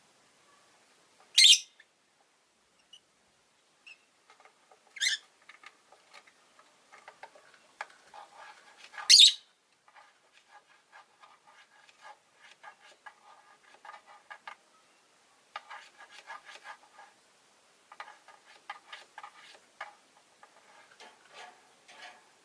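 Rosy-faced lovebirds: three loud, short, shrill calls a few seconds apart, followed by a long run of soft chattering and clicking in bursts.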